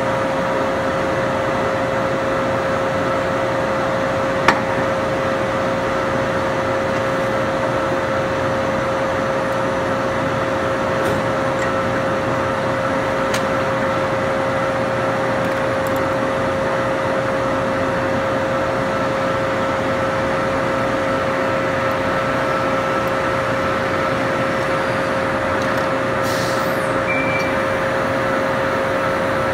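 1985 Poreba TR135 engine lathe running with its spindle turning under power: a steady hum with a constant high whine, and one sharp click about four and a half seconds in.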